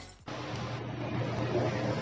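The end of the intro music cuts off, followed by a steady low electrical hum with a faint hiss, the recording's background noise before the narration starts.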